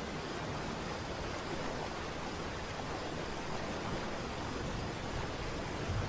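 Large multi-tiered waterfall, a steady, even rush of falling water.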